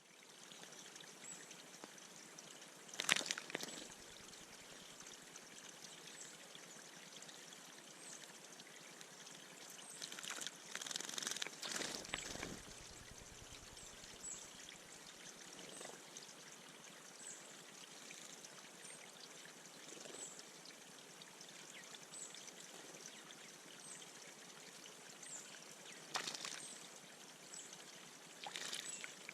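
Water trickling steadily in a bird bath, broken by several sudden splashes as a bird bathes. One splash comes about three seconds in, a longer run of splashing comes a little before halfway, and two more come near the end. A faint high note repeats about every one and a half seconds.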